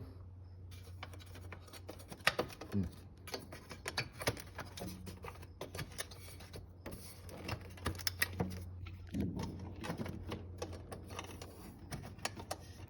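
Irregular clicks and scrapes of a hand tool working a small screw loose on motorcycle parts, over a steady low hum.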